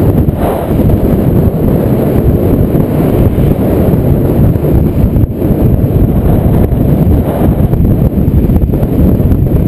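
Wind buffeting a GoPro's microphone during a fast bike descent: a loud, steady rumble with no engine note in it.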